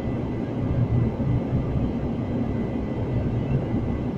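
Aircraft cabin noise in flight: a steady low rumble of engines and airflow, with a faint steady high tone above it.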